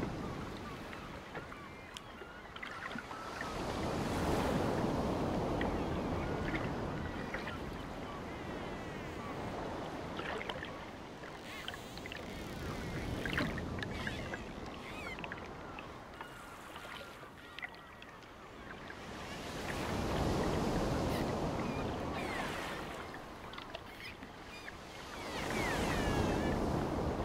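Sea surf breaking and washing up a sandy beach. The rushing noise swells and falls back in slow surges every several seconds.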